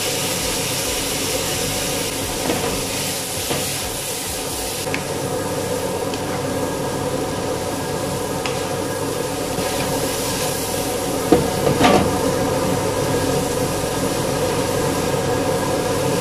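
Cabbage sizzling in a hot wok over a gas burner, a steady hiss. A wooden spatula knocks and scrapes against the pan a few times about eleven to twelve seconds in.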